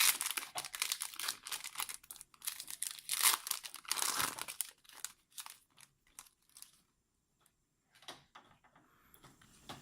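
Foil Yu-Gi-Oh booster pack being torn open and its wrapper crinkled by hand. It comes in two bouts, one in the first two seconds and a second from about three to four and a half seconds in, then fades to a few faint rustles.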